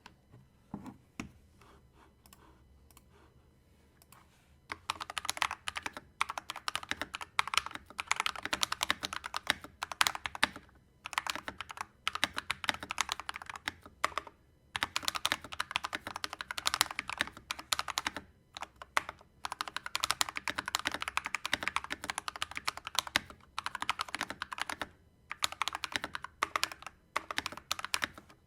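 Typing on a Redragon Kumara K552 tenkeyless mechanical keyboard: a few scattered key presses at first, then fast continuous typing from about five seconds in, broken by several brief pauses.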